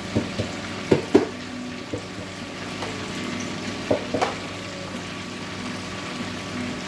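A metal spatula scraping and clinking against an aluminium cooking pot as cooked pancit noodles are scooped out, with a few short knocks: the loudest two about a second in, two more about four seconds in. A steady low hum runs underneath.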